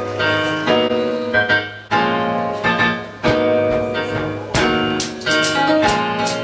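Keyboard playing a run of chords, each struck sharply and partly held, about one to two a second, over a steady low hum.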